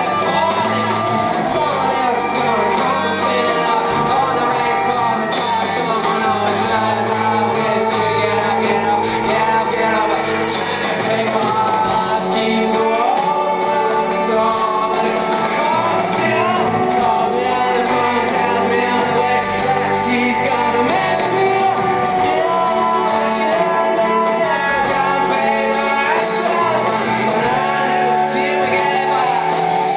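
Rock band playing live with a male lead vocal over guitars, heard through a phone or camera microphone from far back in a stadium crowd, loud and steady.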